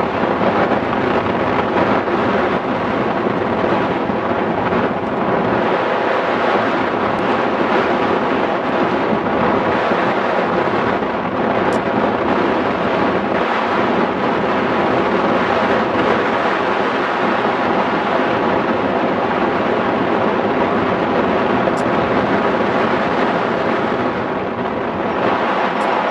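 Steady, loud rush of airflow over a hang glider in flight, buffeting the microphone of the camera mounted on the glider.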